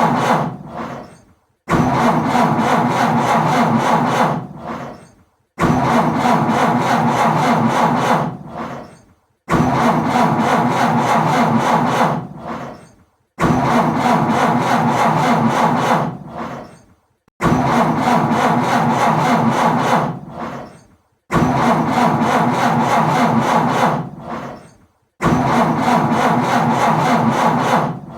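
Car engine being cranked by its starter motor without catching: a rough, rhythmic churning for about two and a half seconds that then dies away. It is repeated about every four seconds, seven attempts in all, each starting abruptly after a short silence.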